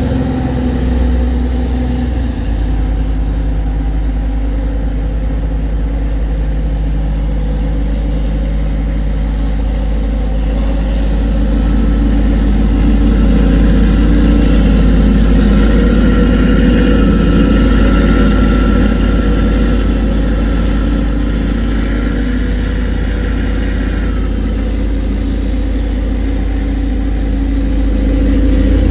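Tugboat's diesel engine running steadily under load while towing a cargo barge upstream against the current, a deep even drone that swells a little midway.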